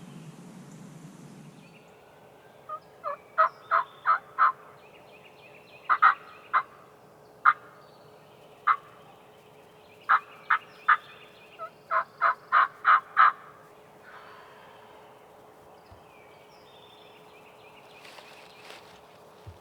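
Turkey yelping: a run of about eighteen short, sharp, loud notes in bunches of two to five, spread over about ten seconds, over a faint steady hum.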